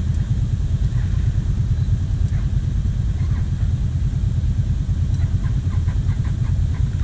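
A quad bike's engine idling steadily close by: a low, even rumble.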